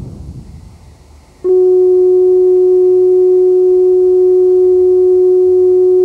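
A fading rumble gives way, about a second and a half in, to a loud steady tone at one low-mid pitch with faint overtones, starting suddenly and holding unchanged.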